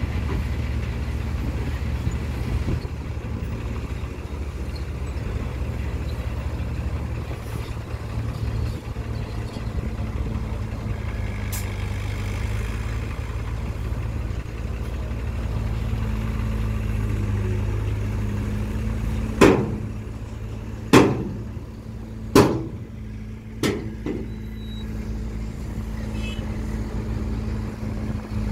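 Diesel engine of a 5-ton dump truck running steadily while its raised bed tips out a load of wet soil. In the last third come four loud bangs, about a second and a half apart, each dying away quickly.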